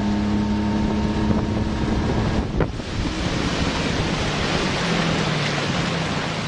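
Outboard motor running steadily with the boat underway at speed, under a heavy rush of wind on the microphone and water along the hull. The motor's hum fades back about two and a half seconds in, with a brief knock at that moment.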